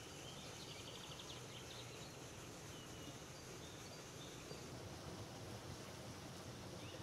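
Quiet outdoor ambience: a steady low background hiss and hum, with a short run of faint high chirps in the first second or so.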